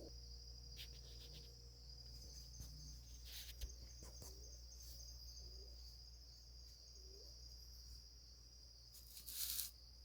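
Faint, steady high-pitched chirring of insects such as crickets. A short loud hiss breaks in near the end.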